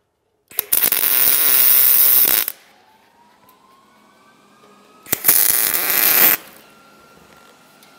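MIG (wire-feed) welding arc crackling in two bursts while tack-welding a bung fitting onto a sheet-steel barrel stove: one of about two seconds starting just after half a second in, then a shorter one of just over a second about five seconds in.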